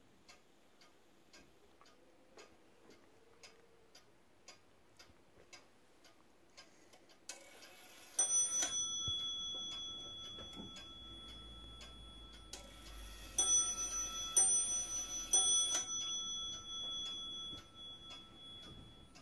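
Dutch 30-hour wall clock ticking steadily at about two ticks a second. Its bell strikes about eight seconds in and three more times a few seconds later, each blow ringing on, with a rustle of the clock being handled around the strikes.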